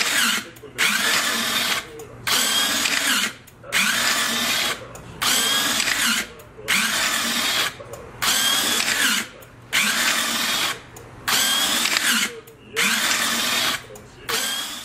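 Electric drive of a GLK Flex-Gear motorcycle landing gear running in short repeated bursts, a drill-like whirring whine whose pitch glides within each burst. It runs roughly every second and a half with brief pauses between, as the gear steps forward little by little during its post-assembly operation test.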